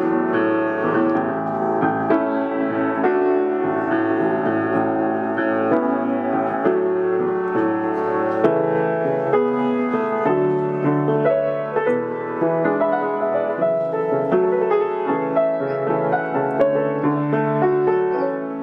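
Piano playing a continuous flowing passage of many overlapping, sustained notes, with the low bass notes filling in more strongly about halfway through.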